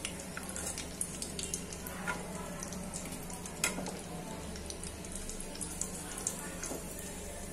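Chicken kofta balls deep-frying in hot oil in an aluminium kadai: a steady sizzle with scattered sharp pops and clicks, the loudest about halfway through.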